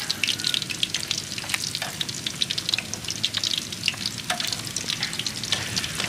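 Batter-coated linh fish (small Mekong mud carp) frying in hot oil in a pan: a dense, steady crackle of popping oil.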